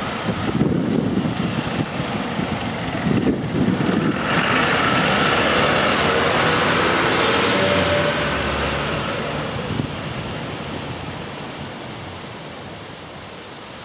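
MAN fire engine's diesel engine and tyres as it drives past close by, loudest about four to eight seconds in, then fading as it moves away. Wind gusts on the microphone in the first few seconds.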